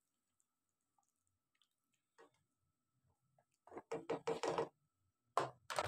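A quick run of four or five light knocks about four seconds in and two more near the end, as a plastic spatula strikes the pan while stirring. Before the knocks there is near silence.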